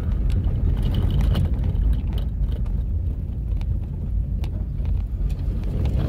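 Car rolling slowly over a cobblestone street, heard from inside the car: a steady low rumble with scattered small knocks and rattles from the tyres on the cobbles.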